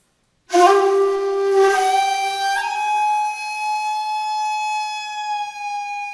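Shakuhachi (Japanese end-blown bamboo flute) entering with a loud, breathy attack on a low note, then stepping up to a higher note held steadily.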